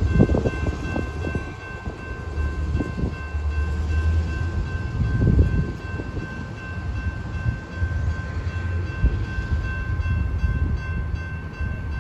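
Railroad grade-crossing warning bell ringing steadily over a low rumble from the departing train. The bell stops near the end as the crossing gates rise.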